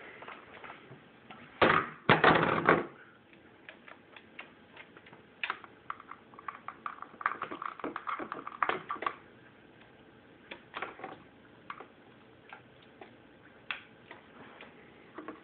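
A metal water bottle clatters over onto the tabletop about two seconds in; this is the loudest sound. After that an African grey parrot's beak and claws tap and scrape at the bottle in scattered short clicks.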